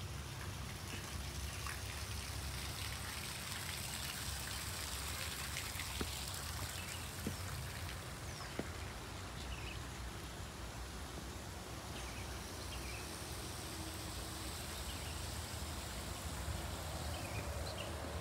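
Steady outdoor background noise: a low rumble and a high hiss, with a few faint short chirps and soft clicks scattered through it.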